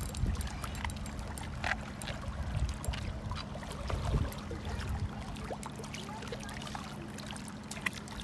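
Water splashing and sloshing as a hooked koi thrashes at the surface while being grabbed by hand at the bank, with scattered small splashes over a low rumble and a faint steady hum.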